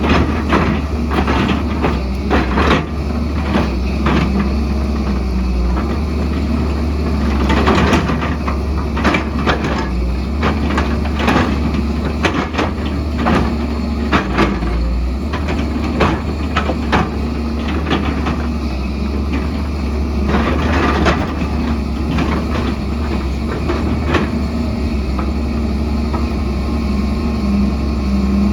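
Heavy diesel excavator engine running steadily under load, with frequent knocks and clatters of the bucket digging and scraping rock and soil.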